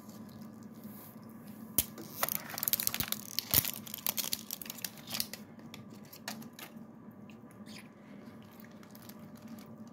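Clear plastic gummy-donut container being handled and pried at: a run of plastic crackles and sharp clicks, busiest about two to four seconds in, tailing off by the middle.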